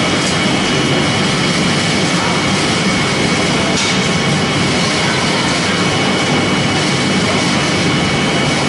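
Hammer mill crusher running, a loud, steady mechanical noise with a thin, steady high whine over it.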